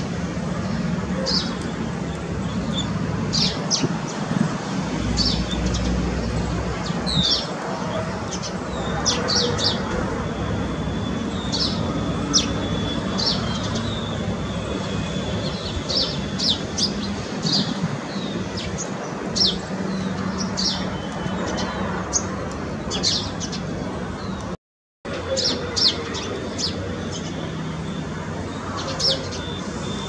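Small birds chirping: short, sharp, high chirps every second or so, over a steady low background rumble. The sound cuts out briefly about three-quarters of the way through.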